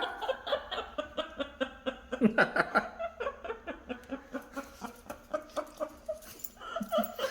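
Parrot laughing: a long run of short, rapid cackling calls, several a second, loudest a couple of seconds in and thinning out toward the end. It is the laugh the bird keeps up while enjoying being splashed with water.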